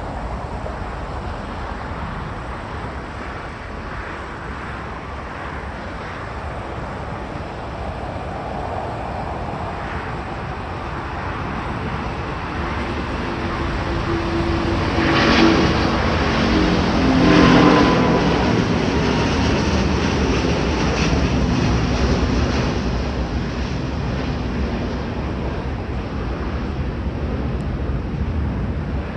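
Airbus A380's four jet engines at takeoff power: a steady rush that builds to its loudest about halfway, with whining tones that dip slightly in pitch as the plane passes, then eases into a long rumble.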